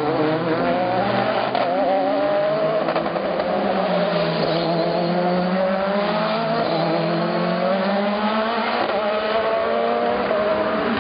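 Several race car engines accelerating along the street circuit, their notes overlapping and rising in pitch again and again as the cars shift up through the gears.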